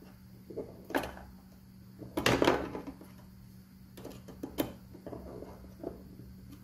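Irregular clicks and scrapes of a small screwdriver and screws against a 3D-printed plastic housing, with a louder clatter of handling a little over two seconds in.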